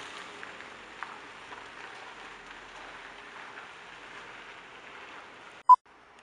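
A steady hiss, then a short, loud, high beep near the end.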